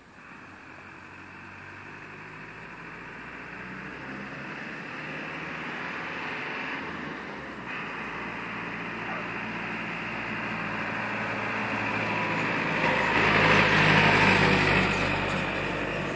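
A vehicle passing: a steady rumble that grows slowly louder for about fourteen seconds, then begins to fade near the end.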